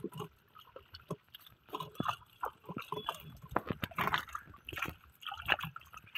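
Irregular wet slaps, splashes and patters of a heap of live small fish flapping in a wet net of water as they are sorted by hand.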